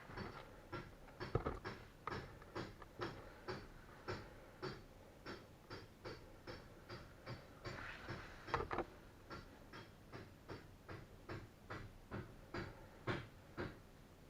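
Gear oil dripping steadily from an outboard's lower-unit drain into a container, one sharp drip about every half second. The drips stop near the end.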